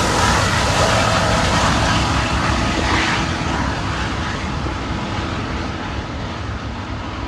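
CSX freight train rolling past, a steady rumble and rattle of its wheels and cars that slowly fades as the train moves away.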